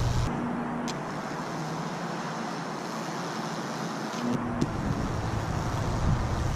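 Electric Lichtenberg wood-burning rig burning a fractal into a pine board: a steady sizzling hiss of the burn with a low electrical hum. The hum cuts out about a third of a second in and comes back around four seconds in.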